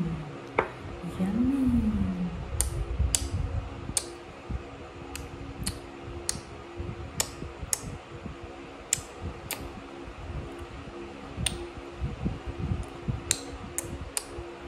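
A steady low hum like a fan runs under faint, sharp clicks that come irregularly about once a second. A woman says "yummy" once near the start.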